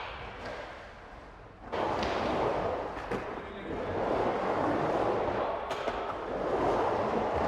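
Skateboard wheels rolling on pavement, a steady rough rumble. It fades at first, comes back with a sudden clack about a second and a half in, and has a couple of sharp clicks along the way.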